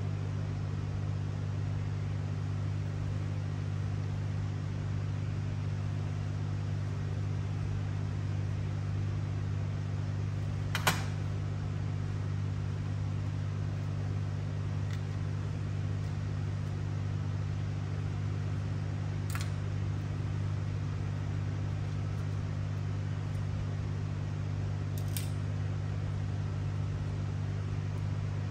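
Steady low machine hum with three short clicks, the first and loudest about eleven seconds in.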